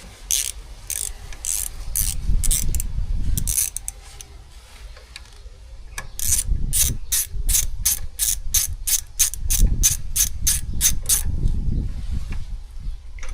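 A ratchet wrench clicking as it turns a bolt on a motorcycle's gear shift linkage, in even runs of sharp clicks. There is a slower run first, a short pause, then a faster run of about four clicks a second.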